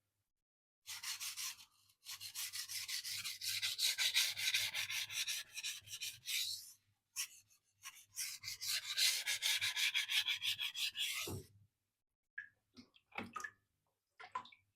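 Steel knife blade stroked back and forth on a wet whetstone in quick, even strokes, about four a second, in two runs of several seconds. The runs end in a low knock, followed by a few short scrapes.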